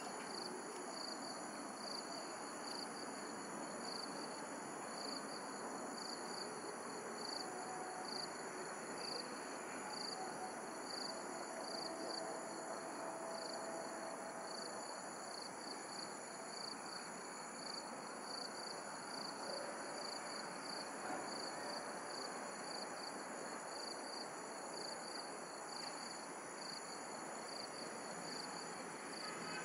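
Crickets and other night insects chirping without a break, a fast pulsing high chirp over steady high trills, with a steady rushing hiss beneath.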